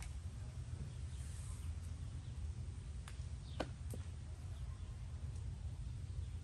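A steady low outdoor rumble, with three light clicks about three to four seconds in as the above-ground pool's parts are handled.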